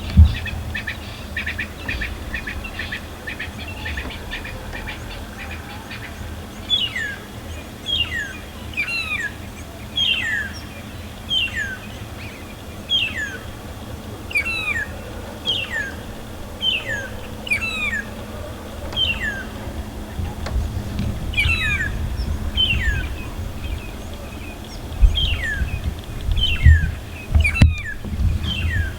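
Wild birds calling: first a quick run of repeated high chattering notes, then, from about seven seconds in, a short falling whistle repeated roughly once a second, sometimes doubled. A low rumble lies underneath, with louder bursts at the start and near the end.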